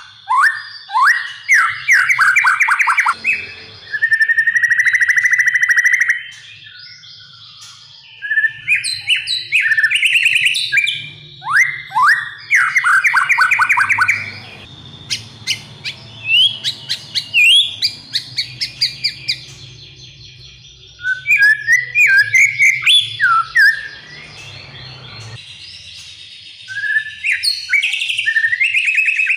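White-rumped shama singing loud, varied song: clear whistled notes, a long buzzy note held for about two seconds, fast runs of short downward-sweeping notes, and a burst of short notes about two-thirds of the way through, broken by quieter pauses.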